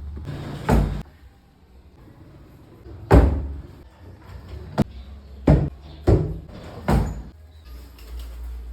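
About six sharp knocks at uneven intervals, each a short impact with a brief decay, over a low steady rumble: a wooden handle being knocked into place.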